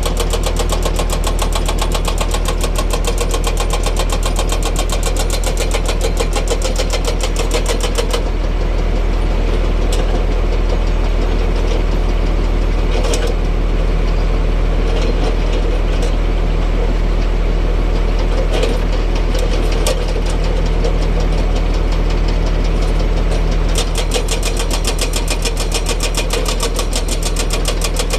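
Heavy diesel excavator engine running, with its hydraulic breaker hammer pounding in a rapid, even rhythm for about the first eight seconds and again near the end. In between, only the engine runs, with a few separate knocks.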